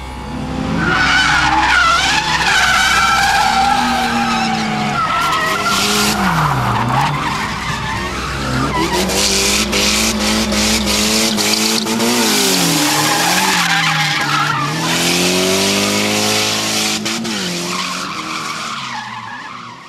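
Drift car engine revving hard, its note dropping and climbing again several times, with tyres squealing as the car slides. The sound fades out near the end.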